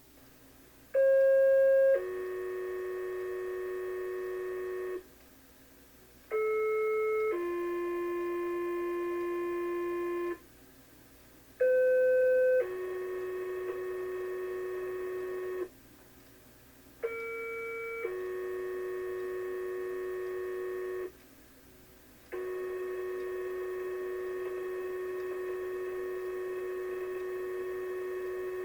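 Two-tone sequential pager alert tones over a scanner radio, sent to set off fire pagers in a county pager test. Four pairs play, each a short tone of about a second stepping down to a steady lower tone of about three seconds, with brief gaps between them. Then one long steady tone follows.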